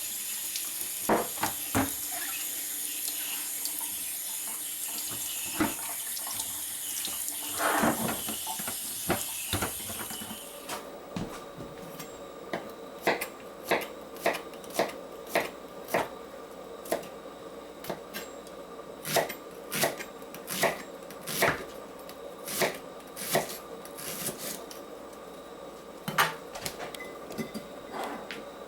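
Kitchen tap running as filled glass pickle jars are rinsed, with a few clinks of glass. The water shuts off about ten seconds in, followed by a long run of sharp clinks and knocks of the jars being handled and set down.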